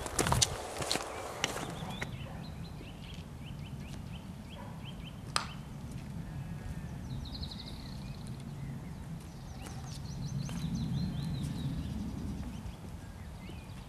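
Footsteps and a wooden walking stick clicking on a stony path as a hiker passes close by, then woodland birds chirping and trilling over a steady low rumble that swells about ten seconds in.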